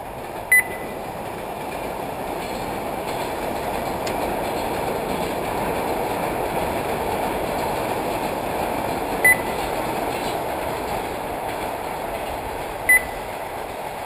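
Short electronic beeps from an RC race lap-timing system, three times: about half a second in, about nine seconds in and near the end, each beep a car crossing the timing line. Under them runs a steady rushing noise that swells in the middle and eases off.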